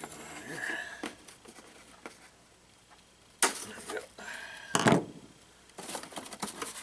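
Packaging being handled during an unboxing: scattered small clicks and rustling, with a sharp knock about three and a half seconds in and a louder thud about five seconds in.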